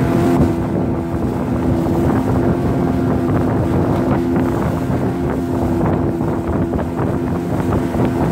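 Motorboat engine running at a steady pitch as the boat moves along, with wind buffeting the microphone and water rushing past the hull.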